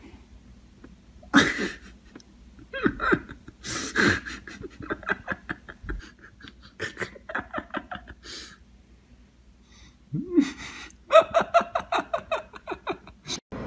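A person laughing in several bouts of quick, pulsing giggles with breathy gasps between them.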